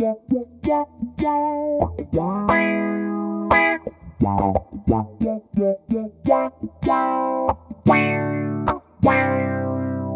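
Electric guitar played through an EarthQuaker Devices Spatial Delivery envelope filter: short picked notes broken up by several chords left to ring for about a second each.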